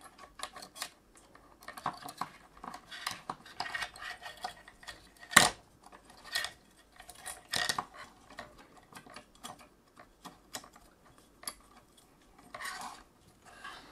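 Scattered small clicks, taps and rattles of a graphics card's fan shroud and heatsink being handled while a new fan cable is threaded through it, with one louder click about five seconds in.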